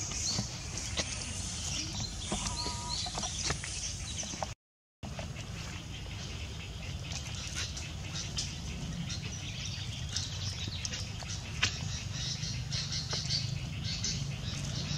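Outdoor ambience: small birds chirping, with scattered light clicks over a steady low hum. The sound drops out completely for about half a second, about a third of the way in.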